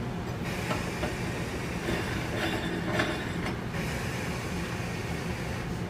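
Steady low background hum with a few faint knocks and scrapes of metal parts as the meat grinder's locking ring is fitted over the blade and die.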